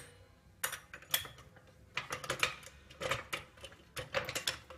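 Metal tools and parts being handled: irregular light clicks and clacks, several a second, as things are picked up and set down.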